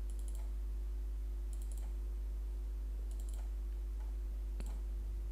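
Computer mouse clicking in about four short double-click bursts, over a steady low electrical hum.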